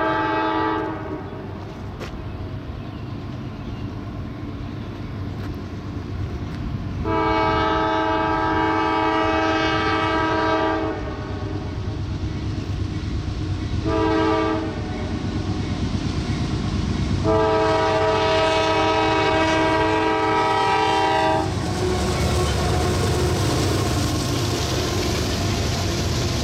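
Approaching CSX freight train, led by AC4400CW and ES44AH locomotives, sounding its multi-note air horn: the end of one blast, then a long blast, a short one and another long one. From about 22 s the locomotives and freight cars roll past with a heavy rumble and wheel clatter.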